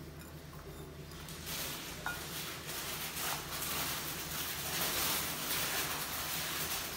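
Raw beef slices and garlic cloves being tossed by hand in a ceramic bowl: soft wet handling noises with small knocks against the bowl, starting about a second and a half in and going on in uneven strokes.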